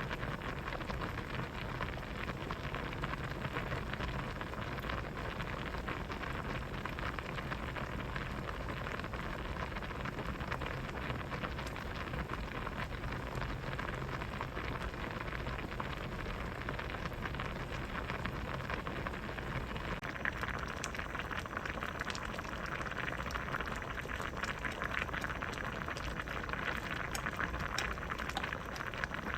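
A pot of vegetable soup boiling steadily, a constant bubbling hiss with fine pops. After about twenty seconds the bubbling gets brighter, with more pops.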